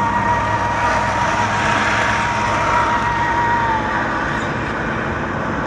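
Car cabin noise while driving: steady road, tyre and engine noise heard from inside the car. A thin steady high tone runs alongside it and stops about four seconds in.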